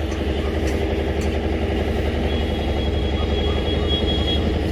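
An engine idling steadily with a low, even hum. A faint high whine joins about two seconds in and fades near the end.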